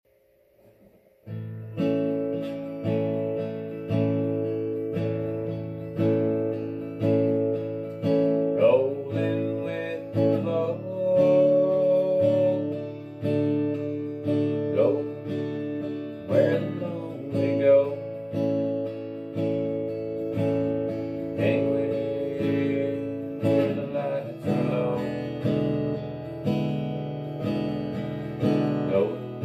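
Steel-string acoustic guitar strummed in a steady, even rhythm of about one stroke a second, playing the instrumental intro of a country song. The playing starts about a second in.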